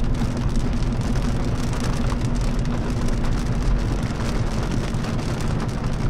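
Heavy rain hitting a moving car's windshield and roof as a steady dense patter, heard from inside the cabin, with a steady low engine and road hum underneath.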